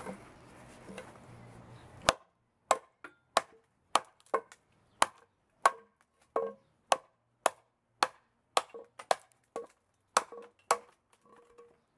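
A small 3/16-inch 1095 steel chopper hacking into a wooden 2x4: a quick run of sharp chops, about two a second, starting about two seconds in.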